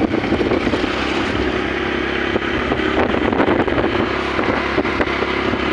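Steady engine and road noise from a moving vehicle, with wind rushing over the phone's microphone.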